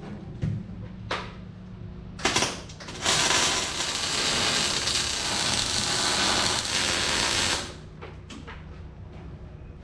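MIG welding arc: a brief strike about two seconds in, then a steady crackling hiss of a continuous weld for about four and a half seconds that cuts off sharply.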